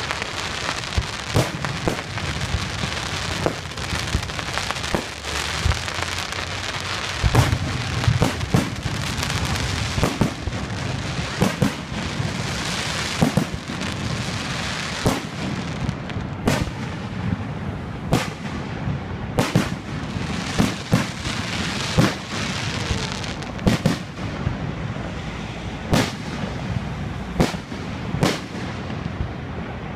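Aerial fireworks shells bursting in a fast, irregular series of booms, about one to two a second, over a steady rushing hiss. A louder cluster of bangs comes about a quarter of the way in.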